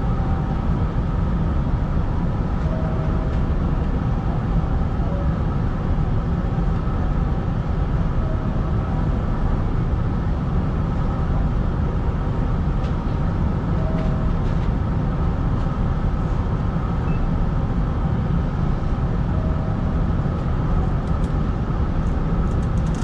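Steady low rumble and hum inside the cab of a Hanshin 5500-series electric train standing at a platform, with its onboard equipment running. A faint short beep comes about every five to six seconds.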